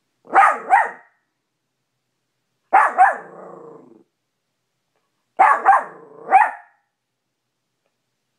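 A small maltipoo barking in three quick bursts of two or three sharp, yappy barks each, about two and a half seconds apart, at its own reflection in a mirror.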